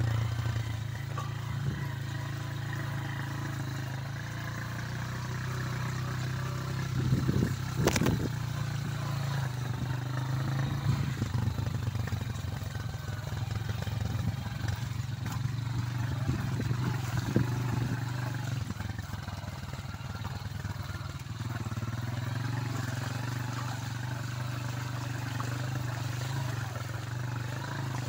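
Small motorcycle engine running steadily at low speed over a rutted, muddy dirt track, with scattered knocks and clatter from the bike, including one sharp knock about eight seconds in.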